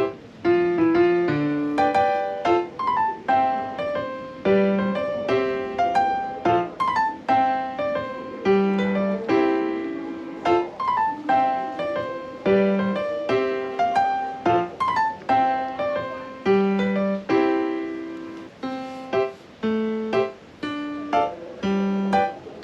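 Background piano music: a light melody of plucked-sounding notes over a repeating bass pattern.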